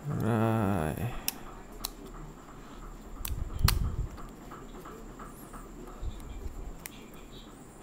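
Light clicks and taps of an iPod Classic's metal and plastic housing parts being handled during reassembly, with one dull thump and click about three and a half seconds in. A short hummed voice sound in the first second.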